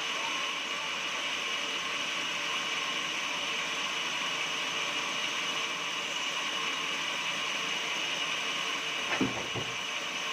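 Portable sawmill running steadily, its machine noise even and unchanging. A single thump is heard about nine seconds in.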